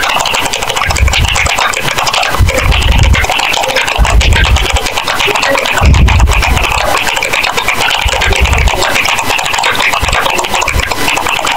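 Computer keyboard being typed on rapidly and very loud: a dense, continuous clatter of keystrokes, with irregular deep thumps underneath.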